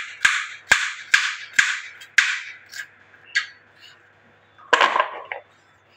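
Kitchen knife slicing through a firm green vegetable onto a plastic cutting board: quick crisp cuts, each a sharp tap with a short crunch, about two a second at first, then a few fainter ones. A louder brushing noise comes about five seconds in.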